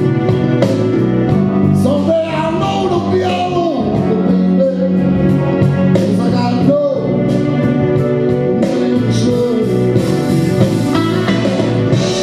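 Karaoke backing track of a blues song with guitar, with a man singing into a microphone over it from about two seconds in.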